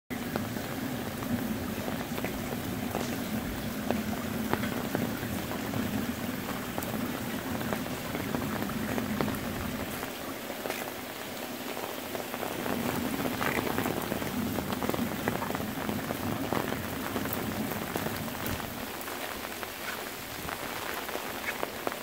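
Steady heavy rain falling on leaves, pavement and pooled floodwater, with many close drops ticking. There is a low rush underneath that eases about ten seconds in and again near the end.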